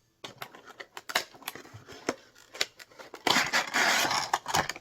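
Ornament box packaging being handled and opened: a run of small crackles and clicks, then a louder scraping rustle for about a second and a half near the end as the ornament is worked out.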